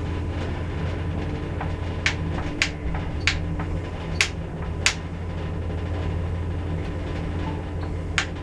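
Lift in operation: a steady low hum of the car and its machinery, with six sharp clicks, most of them between about two and five seconds in and one more near the end.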